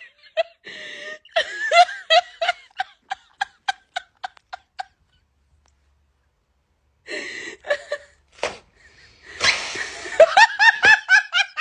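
A person laughing in short bursts that slow down and trail off, then a pause of about two seconds. After the pause a breathy rush and a thump, and near the end a fresh fit of quick laughter.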